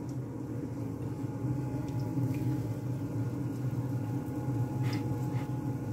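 A kitchen appliance running with a steady low hum, with a faint light tap about two seconds in and another near the end.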